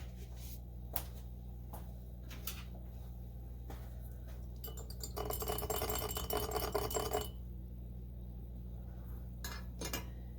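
A metal spoon stirring coffee in a drinking glass: a few light clicks, then about two seconds of rapid ringing clinks near the middle. A steady low hum runs underneath.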